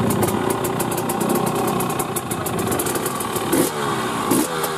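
Husqvarna TE300i's single-cylinder two-stroke engine running at idle, then blipped on the throttle a couple of times near the end, the pitch rising and sliding back down after each blip.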